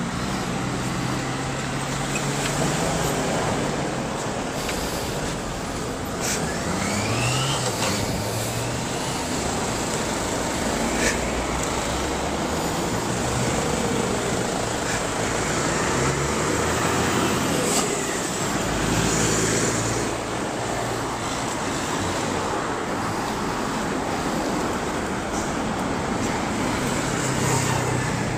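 Steady road traffic on a busy street: cars and vans passing with engine and tyre noise, engine pitches rising and falling now and then as vehicles pull away.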